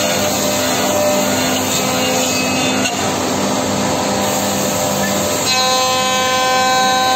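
Four-axis CNC woodworking machining center running, its circular saw blades spinning and cutting clamped wooden workpieces with a loud, steady machine noise. About five and a half seconds in, a steady whine with several tones joins in.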